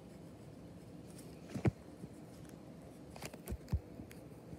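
Pencil drawing on paper laid on a stone countertop: quiet scratching with a few short taps and knocks, the loudest about a second and a half in and several more near three and a half seconds.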